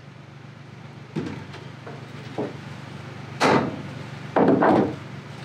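Wooden Langstroth hive boxes knocking and sliding on a wooden workbench as they are handled and set down. A few light knocks, then a loud sharp knock past the middle and a longer, louder knock-and-scrape near the end.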